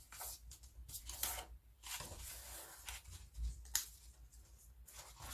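Sheet of A4 paper rustling and crinkling as hands crease its edge and tuck the folded flap into a slit, with a sharper crackle about two-thirds through.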